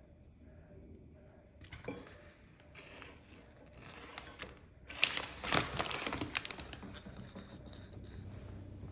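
A run of sharp clicks and rattles with some rustling, much louder and denser from about five seconds in: hand tools and engine parts being handled.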